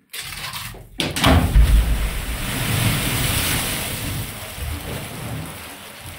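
A dumped load falling down a flooded mine shaft and splashing into the water at the bottom. A deep rumble and rush of splashing surges about a second in, then slowly dies away.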